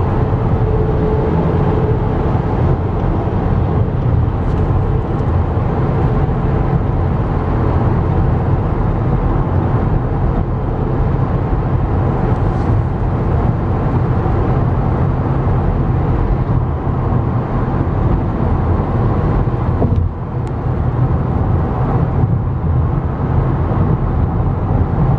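Steady road noise inside a car's cabin at highway speed, made up of tyre and engine noise and heaviest in the low range.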